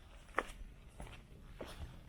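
A hiker's footsteps: a few separate steps, each a short sharp scuff or tap.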